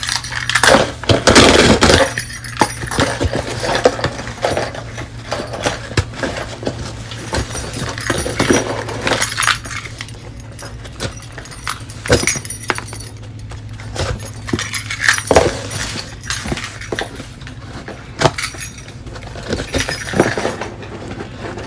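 Keys jangling and scraping as a key is used to tear open a plastic shipping package, with crinkling and ripping of the plastic in irregular bursts over a steady low hum.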